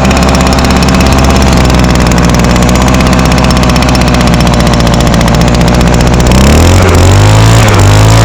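Small two-stroke leaf blower engine, running on VP small engine fuel, idling steadily, then revved up about six seconds in, the pitch rising and wavering. It is running smoothly after its first start of the season.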